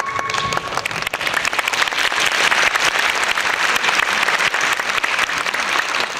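Audience applause, swelling over the first two seconds and then holding steady, as the last held note of the music dies away within the first second.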